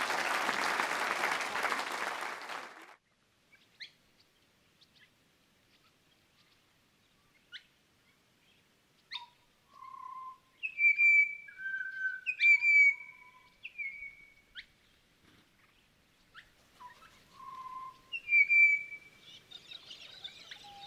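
Audience applauding, stopping about three seconds in. Then recorded birdsong: sharp chips and short clear whistled notes, many dropping quickly in pitch before holding, heard in scattered phrases.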